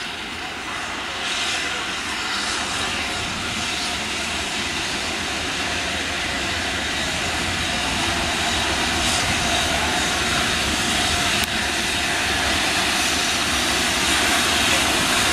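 BR Standard Class 7 'Britannia' Pacific steam locomotive 70000 running slowly through a station at the head of a charter train: a steady hiss and rumble that grows gradually louder as the engine comes closer.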